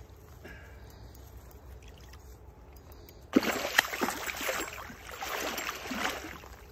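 A muskie thrashing and splashing in shallow water as a hand grabs it, starting about halfway through with a burst of loud, choppy splashes that goes on for a few seconds.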